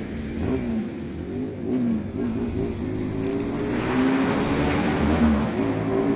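A motor vehicle engine accelerating, its pitch wavering up and down and growing louder from about four seconds in.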